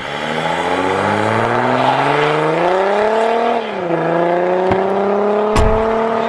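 Car engine accelerating hard: its pitch climbs steadily, drops sharply about three and a half seconds in as at a gear change, then climbs again more slowly. A short sharp click comes near the end.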